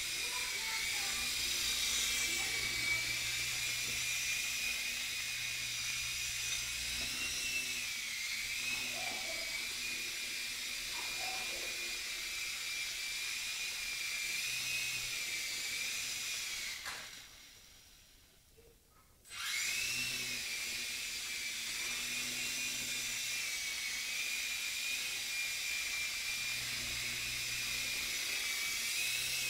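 Blade mCX micro coaxial RC helicopter flying, a steady high whine from its small electric motors and rotors that wavers in pitch as the throttle changes. About 17 seconds in the whine fades away, then comes back suddenly a couple of seconds later.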